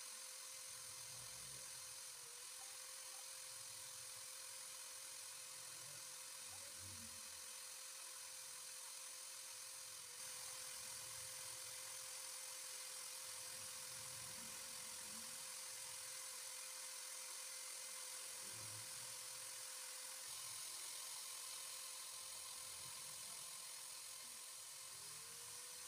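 Electric drill motor running steadily, spinning a homemade fishing float while sandpaper is held against it: a constant whine over a hiss of sanding. Near the end the pitch dips and climbs back up.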